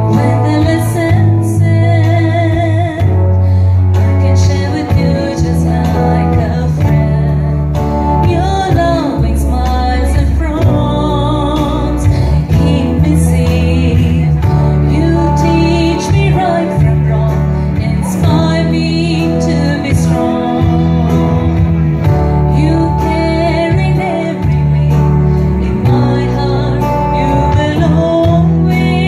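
Group of women singing a song in unison to acoustic guitar accompaniment, amplified through microphones.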